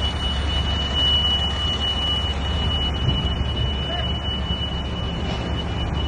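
Low steady rumble of idling fire trucks, with a thin, steady high-pitched electronic alarm tone that fades about a second in and returns near the end.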